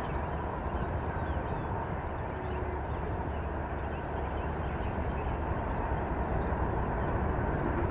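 Wind buffeting the microphone outdoors: a steady, rumbling noise with no break. A few faint bird chirps come through about five to seven seconds in.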